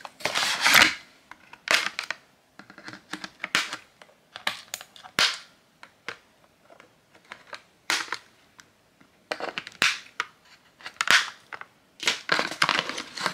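Cardboard and plastic toy packaging being handled and opened: irregular crinkling, scraping and sharp clicks, with scissors snipping the plastic ties that hold a doll in its box.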